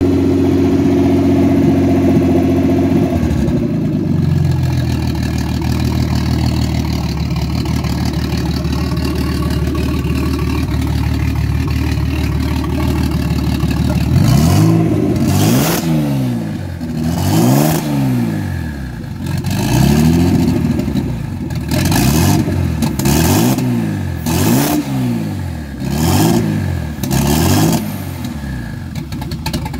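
Turbocharged VR6 engine running on its first start after the turbo conversion. It holds a higher idle, drops to a lower steady idle after about three seconds, and then is blipped about eight or nine times in the second half, each rev rising and falling with a short hiss.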